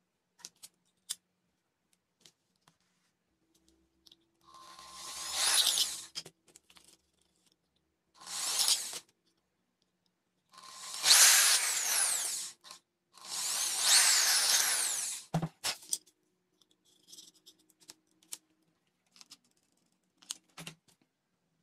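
Handheld electric drill boring holes through drink-can lids in four short bursts, about every two to four seconds, with a sharp tap and light clicks of the lids being handled afterwards.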